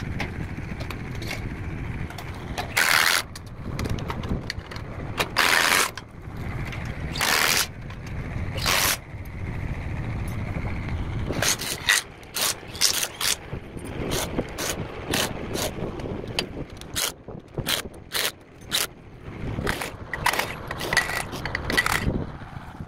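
Cordless impact driver tightening bolts on a center-pivot tower's drive-shaft coupler and wheel gearbox, run in short bursts: a few longer ones in the first half, then many quick ones from about halfway on.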